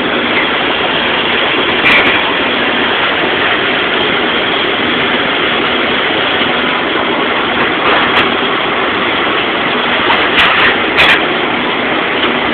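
Electric arc welding: a steady hissing crackle, with a few sharper pops about two seconds in, at about eight seconds, and twice near the end.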